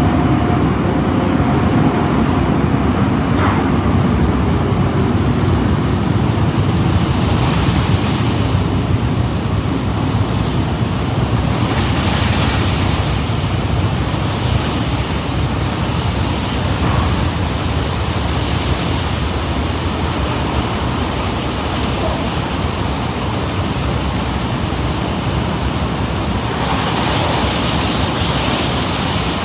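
Car wash tunnel dryer blowers running, a loud steady rush of air that turns hissier a few times.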